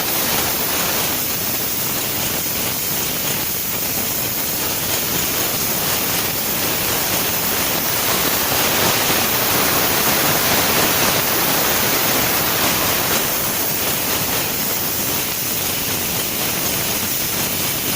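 Nail-inspection and sorting machine running, a loud, steady, even noise with no distinct beats or tones.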